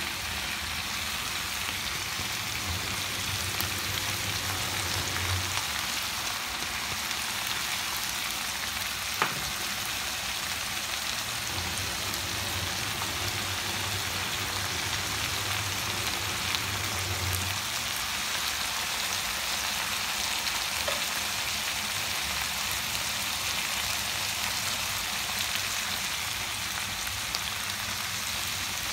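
Mixed vegetables (okra, cauliflower, broccoli and onion) sizzling steadily as they fry in a pan, with a single sharp click about a third of the way through.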